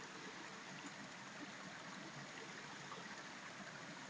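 Faint, steady rushing of a small mountain stream flowing over rocks.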